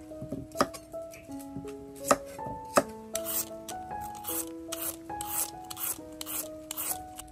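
A kitchen knife knocks a few times on a wooden chopping block cutting a carrot. Then a toothed julienne peeler scrapes strips off a raw carrot in quick strokes, about three a second.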